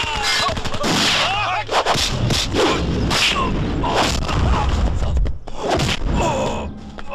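Film fight sound effects: gunshots, then a run of sharp punch and kick impacts with whooshes, mixed with men's shouts and grunts.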